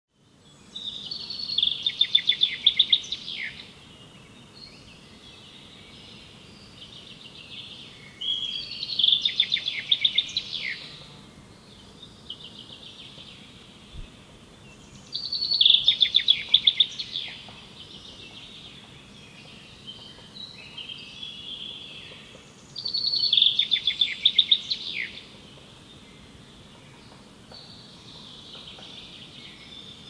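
Forest songbirds singing. One bird sings a loud phrase of rapid notes about two seconds long, four times, roughly every seven seconds. Quieter songs of other birds fill the gaps.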